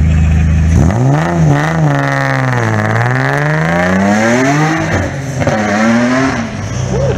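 Nissan 350Z's 3.5-litre V6 idling, then revving hard as the car pulls away, its pitch rising and falling several times before fading toward the end.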